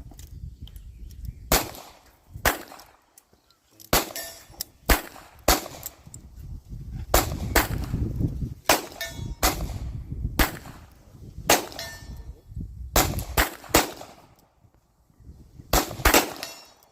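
Small concealed-carry handgun firing single shots at a slow, aimed pace, mostly about a second apart with a few quicker pairs, on a long-distance target. A low rumble sits between the shots.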